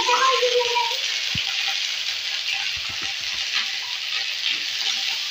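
Masala paste sizzling steadily as it fries in hot oil in a kadai, with a few soft knocks.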